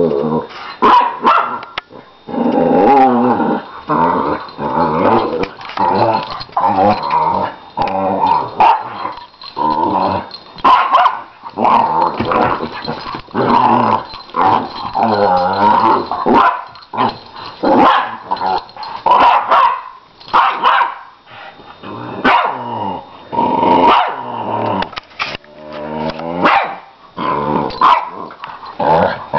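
A Lhasa Apso and a puppy play-fighting, with repeated growls and barks one after another, some calls bending up and down in pitch. The owner is unsure whether the scuffle is play or a real fight.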